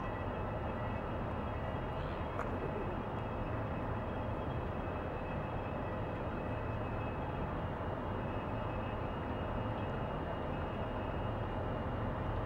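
Steady low drone of a large ship's diesel engines and propulsion, from the hopper suction dredger Reimerswaal under way, with a few faint steady whining tones above the rumble.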